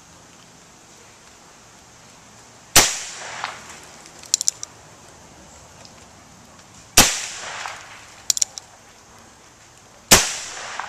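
.22 revolver fired three times, a few seconds apart, each shot a sharp crack with a short echoing tail. After each of the first two shots comes a quick little cluster of clicks.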